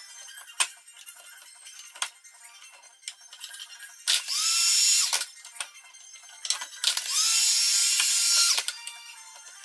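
Cordless drill-driver running in two bursts, the first about a second long and the second about a second and a half, each spinning up as it starts, taking screws out of a mould box. Sharp clicks and knocks of handling come between the runs.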